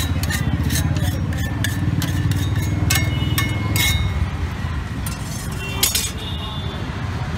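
Metal spatula scraping and tapping on a flat griddle (tawa): a quick run of clinks at first, then scattered clinks with a brief metallic ring and one sharp clink near the end. Under it runs a steady low rumble.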